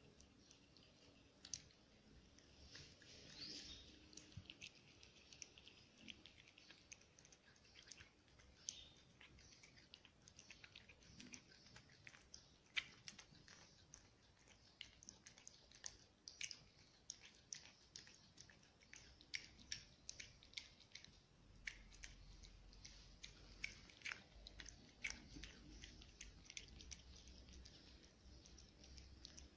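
Domestic cat chewing and eating soft morsels from a plate: faint, quick, irregular clicks and smacks of its mouth and teeth.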